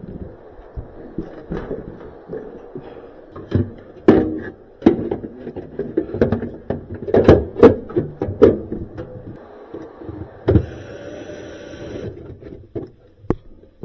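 Irregular clicks and knocks of hand-handled appliance parts being fitted together, with a brief rustle or scrape about ten seconds in.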